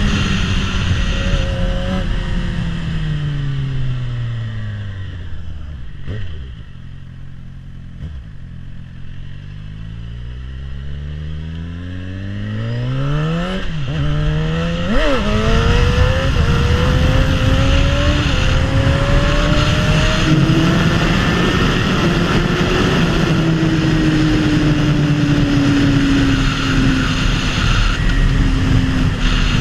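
2011 Suzuki GSX-R 750 inline-four with a full Akrapovic exhaust, being ridden. The engine note falls as the bike slows over the first several seconds, stays low and quieter for a few seconds, then revs up again with a brief dip partway through the rise, and settles into a fairly steady run.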